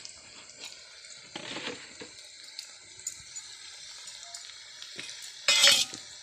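A little oil sizzling faintly in a hot steel kadai, with a few light clinks of steel utensils and one brief loud noise about five and a half seconds in.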